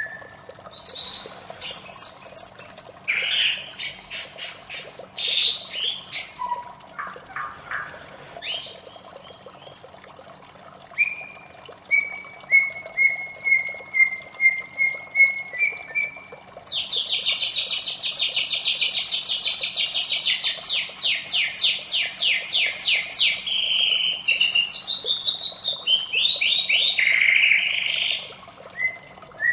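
White-rumped shama singing: varied whistled phrases and sharp notes, then a run of short repeated whistles, and from a little past halfway a long, fast, rattling trill before more whistled phrases.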